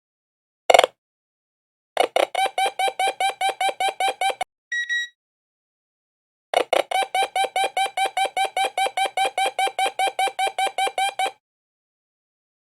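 Metal detector beeping. A short blip comes about a second in, then a fast run of pitched pulses, about six a second. A brief higher steady beep follows, then a pause, then a second, longer run of the same fast pulses.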